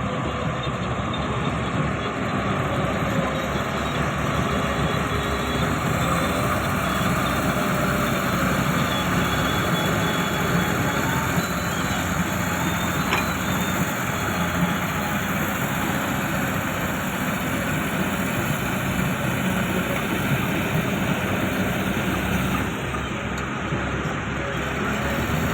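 Large crawler bulldozer's diesel engine running steadily at work, a loud continuous machinery noise.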